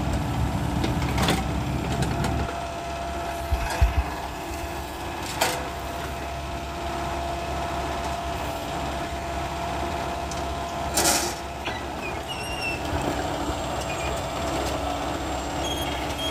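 Furukawa mini excavator's diesel engine running under load as the bucket digs into soil, with sharp metal clanks from the bucket and boom and a couple of heavy thumps about four seconds in. A thin steady whine runs from about five to eleven seconds in.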